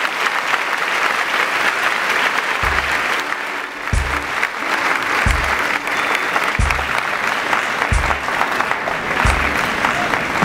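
A large audience applauding. A music track's low bass beat comes in about two and a half seconds in, about one thump every second and a third.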